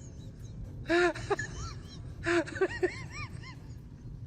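A high-pitched voice making short cries that rise and fall in pitch, in two bursts: one about a second in and a longer run from about two and a quarter seconds in. A steady low hum runs underneath.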